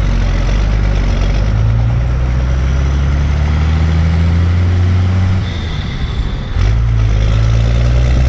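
Pickup truck engine droning steadily at road speed, picked up close by a hood-mounted camera. It eases off briefly about five and a half seconds in, then picks back up.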